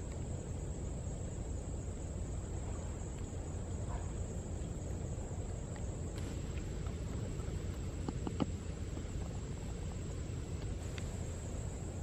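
Insects trilling steadily in a high continuous whine over a steady low rumble, with a few faint clicks about six and eight seconds in.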